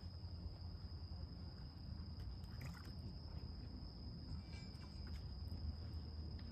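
Steady high-pitched chirring of crickets over a low, even rumble of wind and water, with a few faint ticks.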